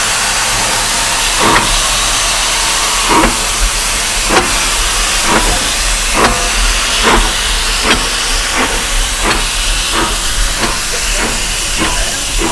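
Steam locomotive pulling away: a steady hiss of steam with exhaust chuffs that begin about a second and a half in, widely spaced, and come steadily faster as it gathers speed, reaching more than one a second near the end.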